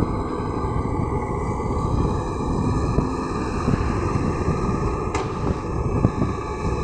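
LiuGong crawler excavator's diesel engine running under load as it swings its boom and lowers its bucket into the dirt, with a short sharp click about five seconds in.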